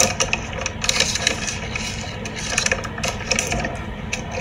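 Tao Kae Noi Big Sheet crispy seaweed crackling and crunching as it is broken and bitten: an irregular string of sharp, dry crackles.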